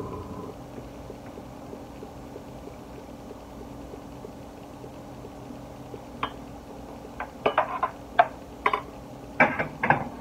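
Stainless steel saucepan and metal spoon clinking and knocking. The sharp clinks come in quick clusters from about six seconds in, over a faint steady background.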